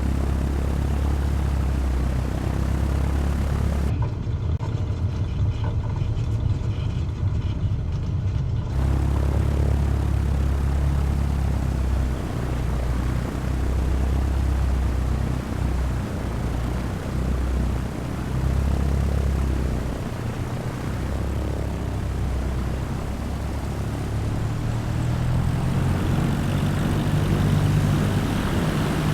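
Cessna 172's piston engine and propeller droning steadily, heard from inside the cabin. The sound turns muffled for about five seconds starting some four seconds in.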